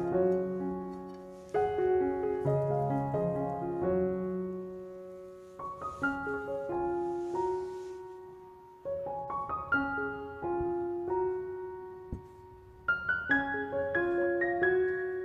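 Background piano music: a slow melody of struck notes over held low chords, each phrase fading before the next begins.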